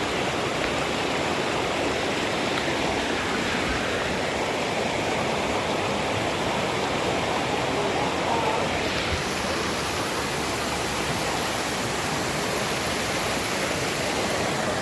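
Waterfall: water falling and splashing in a steady, even rush of noise.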